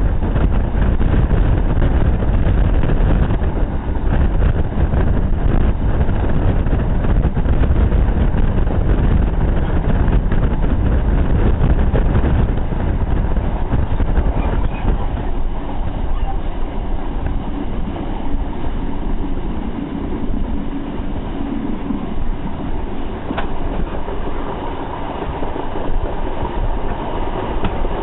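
Passenger train running at speed, heard from an open carriage window: a steady, loud rumble of wheels on the rails that eases somewhat in the second half, with a single sharp click near the end.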